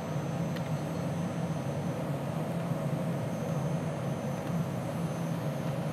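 Steady drone of a running DEC PDP-11/70 minicomputer and its spinning disk drives: cooling fans and drive motors running evenly.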